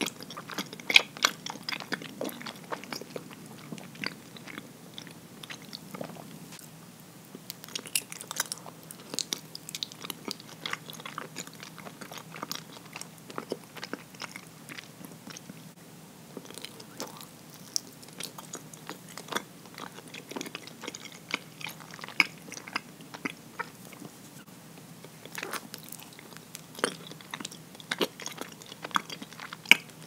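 Close-miked chewing of soft, sticky habutae mochi: many short, sharp wet mouth clicks and smacks at an irregular pace.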